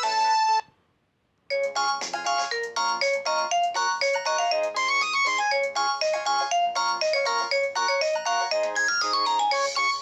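Philips S200 ringtones playing through a Nokia C2-01 phone's loudspeaker. One melody cuts off just after the start, and after about a second of silence the next ringtone begins, a quick melody of short notes, several sounding at once.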